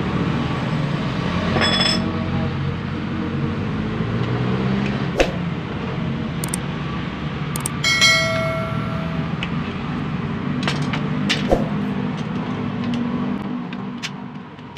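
Metal clicks and taps from hand tools on a car power window regulator's steel rails and cable drum, with one ringing metallic clink about eight seconds in, over a steady low hum.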